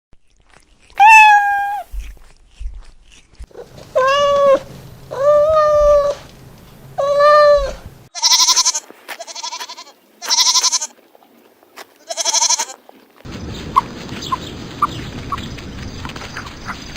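A series of domestic animal calls, each a drawn-out pitched cry lasting under a second to about a second: one near the start, three lower ones, then three with a quavering edge. From about two-thirds of the way in, a steady rustling background with small scattered clicks takes over.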